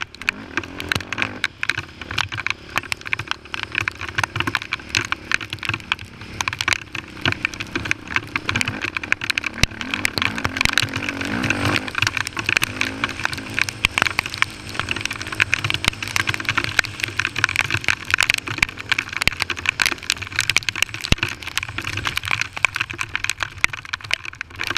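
Honda TRX450R quad's single-cylinder four-stroke engine running at speed, rising in pitch about halfway through as it revs, under a dense crackle of sharp clicks and rattles.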